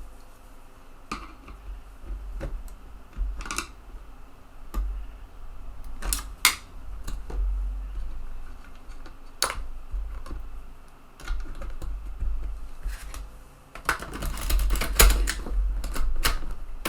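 Sharp clicks and small knocks from handling a TEAC FD-235F floppy drive's eject mechanism, spaced irregularly at first and bunching into a quick run of clicks near the end.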